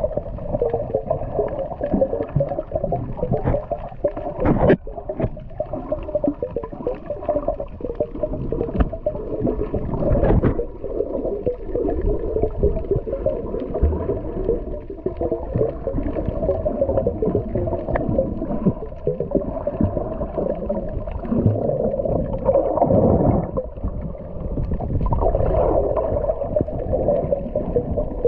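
Muffled underwater noise picked up by a camera submerged on a reef: a dense, steady rush of water with irregular swells, as a hand fans sediment off the corals.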